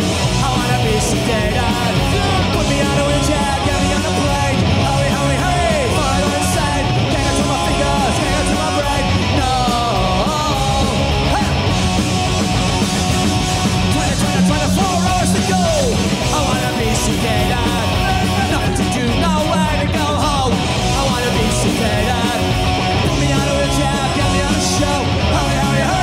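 Punk rock band playing live at full volume: distorted guitars, bass and drums with yelled singing.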